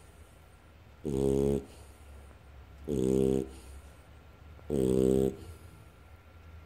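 Dog snoring in its sleep: three pitched snores, each about half a second long, coming roughly every two seconds.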